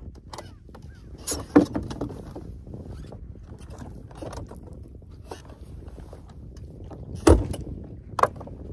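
A few sharp knocks and clunks of gear being handled in a fishing boat, the loudest about a second and a half in and about seven seconds in, over a low steady rumble.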